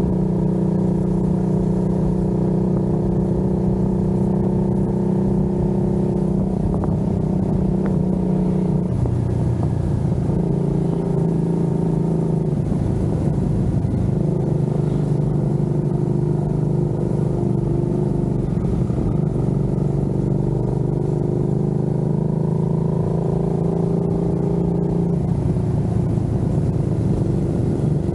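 Cruiser motorcycle's engine running at a steady cruising speed, heard from on the bike, its engine note shifting in pitch a few times, around a third of the way in and again near the end.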